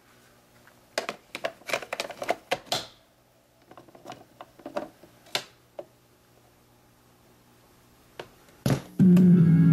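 Plastic clicks and clatter of a cassette being handled and set into a 1968 Norelco 2500 stereo cassette deck, with lighter clicks a little later. Near the end a sharp click as the deck's control knob is turned to play, and music starts from the speakers.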